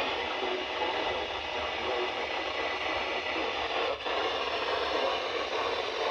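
Steady radio static hiss from a weather-alert radio receiver picking up a noisy signal, with a brief dip about four seconds in.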